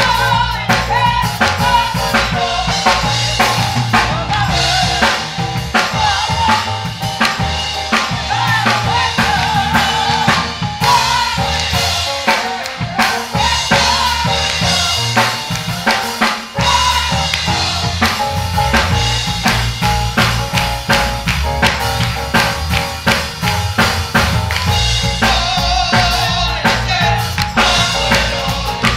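Live church music: a drum kit playing a busy beat with snare, rimshots and bass drum, under a bass line and singing.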